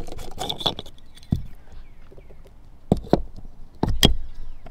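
Plastic clicks and knocks of a trolling motor's power plug being handled and pushed into its deck receptacle, with a few sharp knocks about three and four seconds in.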